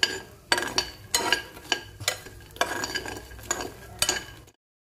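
A spoon stirring dry-roasted fox nuts (makhana) and fried potato pieces in a hot ghee kadhai, scraping and clinking against the pan about twice a second. The sound cuts off suddenly near the end.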